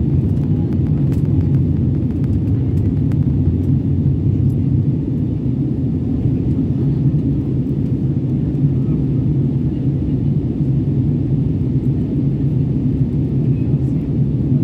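Steady low drone of a jet airliner's engines and rushing air, heard from inside the passenger cabin.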